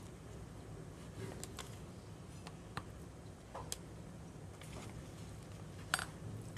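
Scattered light clicks and taps from handling a food container and utensils, with one sharper click near the end, over a low steady hum.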